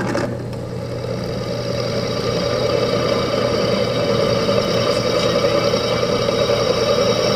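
Drill press running with a Black & Decker twist bit cutting into thick steel square tubing: a steady motor hum with a steady high-pitched tone from the cutting above it, growing slightly louder.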